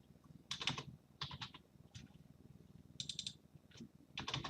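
Typing on a computer keyboard: a few short bursts of quick key clicks, faint.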